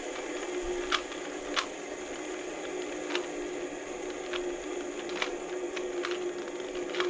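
3x3 Rubik's cube being turned quickly in the hands, its layers clicking and clacking in sharp, irregular snaps over a steady low hum.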